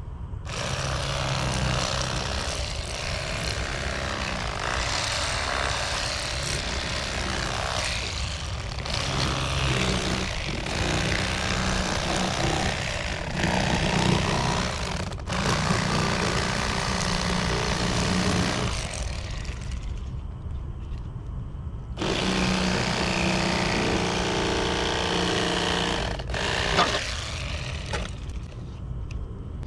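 Electric fillet knife motor buzzing as its reciprocating blades saw through crappie, with the pitch wavering as the blade meets flesh and bone. It runs in long stretches, stops for about two seconds a little past two-thirds through, then starts again.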